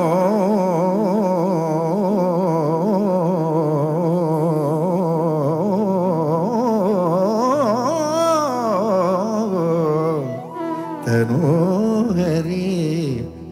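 Devotional Carnatic-style singing: a singer draws out one long ornamented note that wavers up and down in pitch for about ten seconds, then sings a shorter phrase near the end, over a steady low drone.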